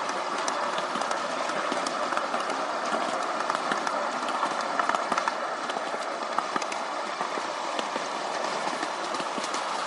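Miniature railway train, hauled by a model of Metropolitan Railway electric locomotive No. 12, running along the track: a steady rolling noise of wheels on rails with scattered irregular clicks.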